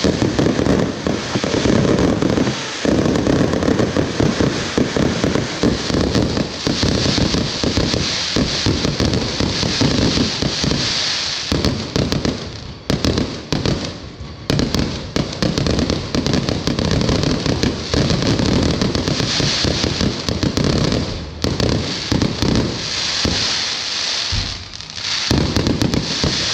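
Fireworks going off in a dense, continuous barrage of bangs and crackling. It thins out briefly about halfway through and again near the end.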